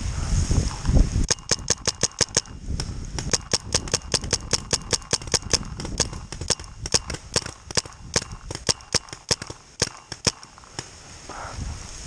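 Paintball markers firing rapid strings of sharp pops, about four or five a second, starting about a second in and stopping shortly before the end. Low rumbling handling noise comes before the shots begin.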